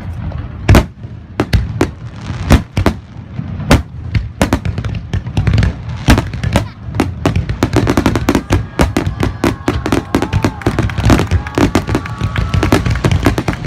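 Fireworks going off: sharp bangs about once a second at first, then a rapid, dense barrage of bursts from about six seconds in.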